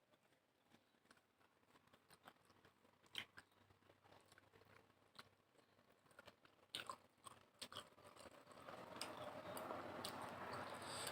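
Faint chewing with scattered soft mouth clicks and smacks from someone eating a rice-and-curry meal; a steadier hiss swells in over the last few seconds.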